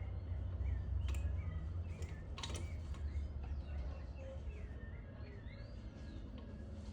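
Small birds chirping repeatedly, short curved chirps, over a steady low rumble, with a few sharp clicks about one and two and a half seconds in.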